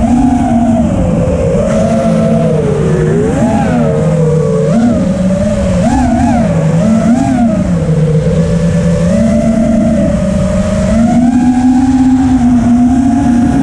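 FPV racing quadcopter's brushless motors and propellers whining, the pitch rising and falling constantly with the throttle, then holding steadier and a little higher near the end.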